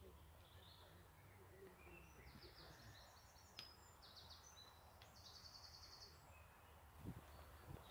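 Near-silent countryside ambience: faint songbird chirps, with two brief rapid trills near the middle, over a low background rumble.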